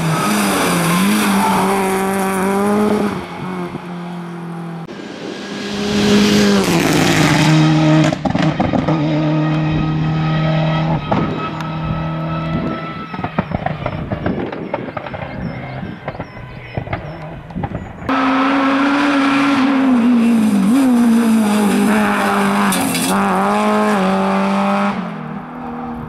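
Rally car engines driven hard, one car after another. The engine note climbs and drops repeatedly as the cars rev up, change gear and lift off, with sudden switches from one car to the next.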